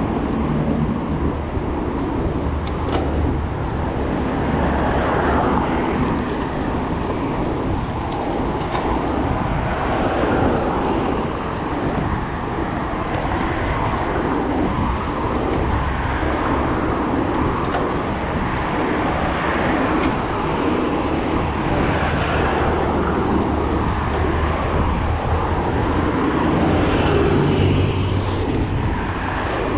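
Steady street traffic and riding noise, picked up by an action camera's microphone on a moving bicycle's handlebar.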